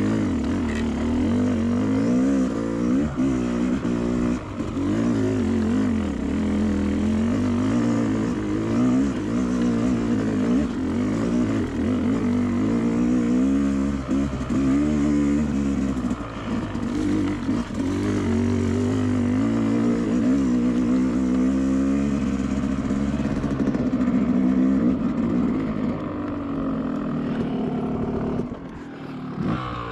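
Two-stroke dirt bike engine revving up and down continuously under load. This is typical of a slow, low-gear trail section where the rider thinks he was slipping the clutch. Near the end the revs drop and it quietens.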